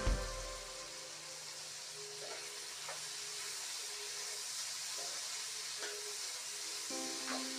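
Tomatoes, green chillies and tamarind frying in oil in a pan, a steady sizzling hiss, with a few faint clicks of a ladle against the pan.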